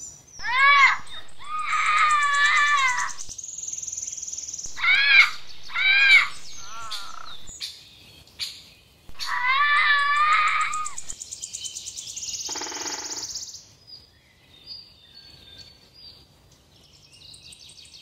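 Parrot calling: a string of loud, shrill chirps and warbling calls, each rising and falling in pitch, with a harsh buzzing rasp a little past the middle and fainter chirps near the end.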